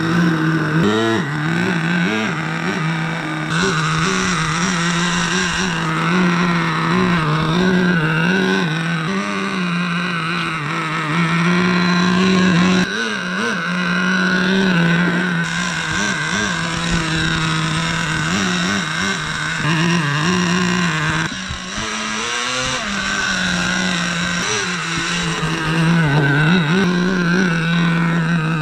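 Small two-stroke glow-fuel (nitro) engine of an RC rally car running steadily, its pitch wavering slightly up and down with a few brief dips.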